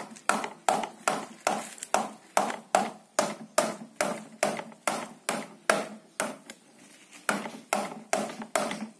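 A hand-held stone knocking repeatedly against a child's plastic toy bicycle wheel, about two and a half sharp knocks a second, with a brief pause about seven seconds in.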